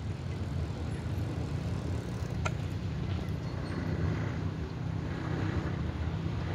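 Steady low rumble of outdoor background noise, with a single sharp click about two and a half seconds in.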